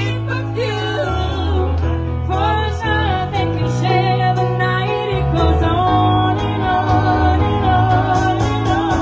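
A woman singing into a handheld microphone through a PA, over instrumental accompaniment with a steady bass line.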